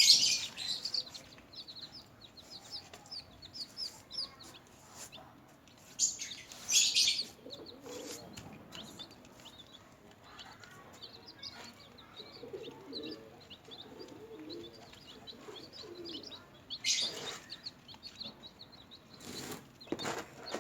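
Newly hatched chicks peeping, a steady stream of short high peeps. Loud rustling bursts break in four times: right at the start, about six seconds in, and twice near the end.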